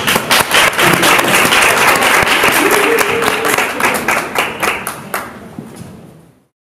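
Audience applauding, the clapping thinning and fading out near the end.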